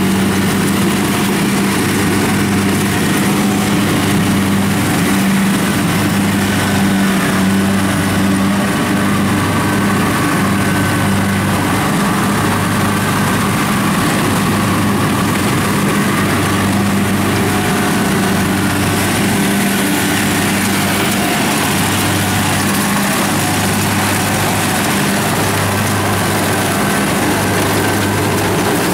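Kubota DC-70 combine harvester running under load while cutting and threshing rice: a steady engine-and-machinery drone, with a low hum that swells and fades every second or two.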